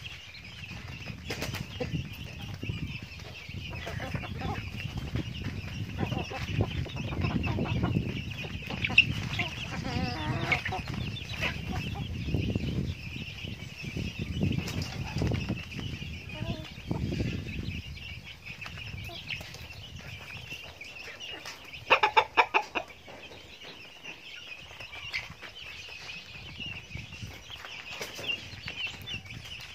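Backyard chickens (a rooster, hens and chicks) clucking and pecking at feed on a tarp, with scattered pecking clicks and some wing flapping. A short, loud flurry of rapid beats comes about two thirds of the way through.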